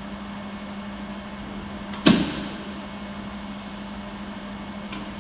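Flash-lamp laser welding machine firing one pulse with a sharp snap about two seconds in, over its steady hum, and a fainter click near the end. The snap shows the laser is working.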